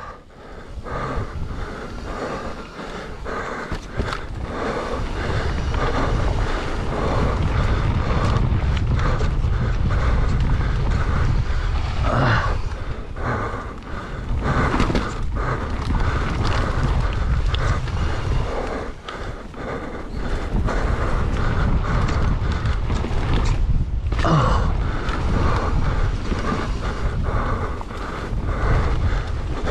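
Wind rushing over the camera microphone while a mountain bike rolls fast down a dirt trail, its tyres crunching and its frame and parts rattling and knocking over bumps.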